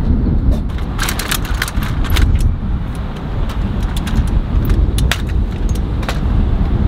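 Light metal clicks and rattles of an aluminium folding walker being gripped and moved, coming in quick irregular clusters, over a steady low rumble.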